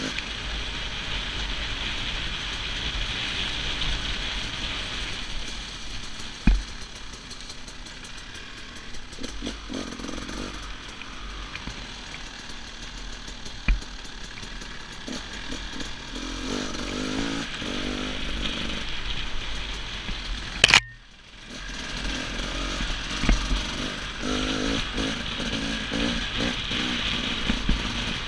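Enduro dirt bike engine revving up and down as it is ridden over rough trail, with sharp knocks from the bumps. Near three quarters of the way through there is a sharp clack and the sound briefly drops out before the engine noise returns.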